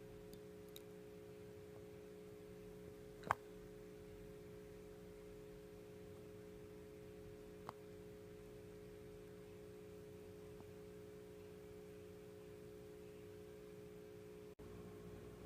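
Near silence: a faint steady hum, with one sharp click about three seconds in and a smaller click near eight seconds.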